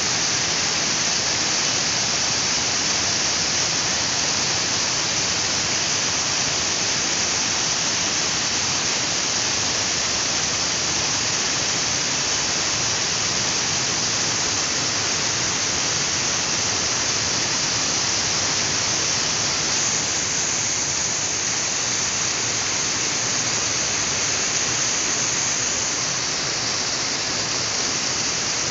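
Water spilling over a reservoir's overflow edge and splashing onto rocks below: a strong, steady rush with no let-up.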